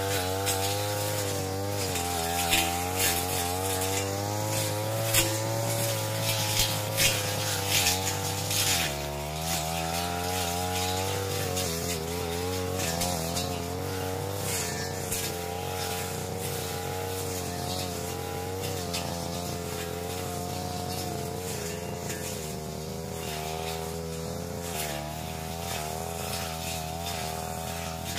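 Backpack brush cutter's engine running at high revs while slashing grass and scrub, its pitch sagging and recovering as the head bites into the growth and dropping noticeably about nine seconds in. Sharp clicks and slaps of stems being struck come through during the first several seconds.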